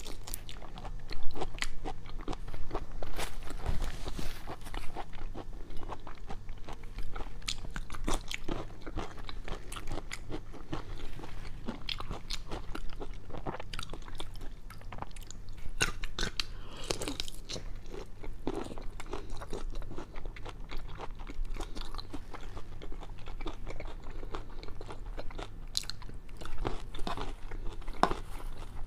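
Close-miked chewing and biting of a large shrimp: wet mouth sounds with many small sharp clicks all through.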